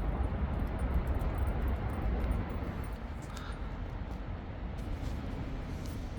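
Steady low rumble of vehicle or traffic noise, with a few faint ticks.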